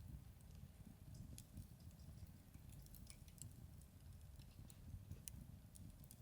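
Campfire crackling faintly: small irregular pops and snaps over a low, steady rumble.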